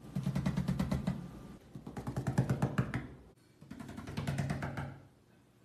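A cat growling low in three stretches of about a second and a half each, a fast pulsing rumble with short breaks between, the sound of an agitated cat with its tail puffed up.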